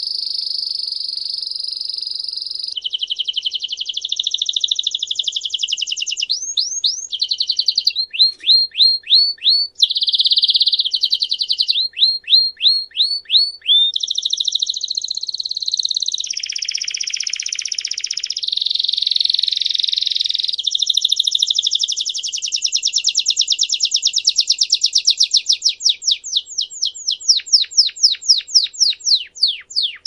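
Domestic canary (canário belga) singing a long unbroken song of fast trills and rolls that change every few seconds, broken up by runs of quick downward-sliding notes.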